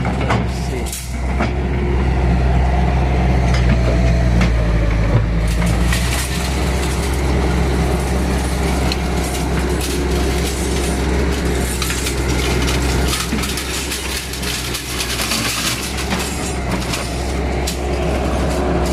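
A heavy diesel engine, the excavator's, runs steadily with a low hum throughout. Scattered knocks and clanks come over it.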